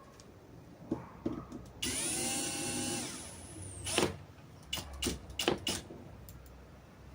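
Cordless drill/driver running for about two seconds and winding down, followed by several sharp knocks and clicks of hardware being handled.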